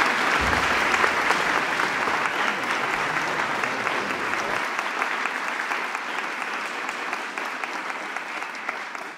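Audience applause, a steady round of clapping that slowly dies down.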